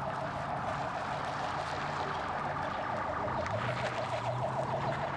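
Ambulance siren sounding a fast yelp: short rising sweeps repeating several times a second, over a low steady engine hum.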